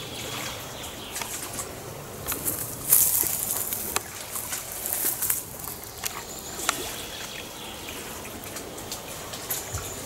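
Small waves lapping and trickling at the water's edge, with leaves rustling and a cluster of clicks and brushing hiss about three to five seconds in as the camera is moved among the branches.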